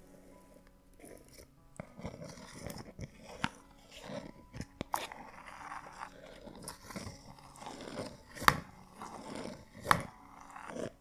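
The white screw-on plastic lid of a body scrub tub being twisted and worked off by hand: crackling, crunching plastic with scattered sharp clicks, the loudest about eight and a half and ten seconds in.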